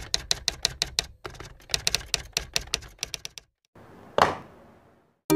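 Typewriter keystrokes clacking rapidly, about seven a second, with a brief break, for about three and a half seconds. After a short gap comes a single whoosh about four seconds in, and music starts right at the end.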